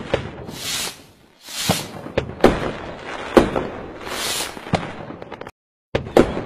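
Fireworks: a string of sharp bangs and crackles with rushing hisses between them, cutting out suddenly for a moment about five and a half seconds in.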